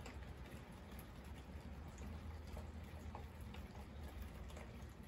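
Rain pattering steadily, with many scattered separate drop ticks over an even hiss and a low steady rumble underneath.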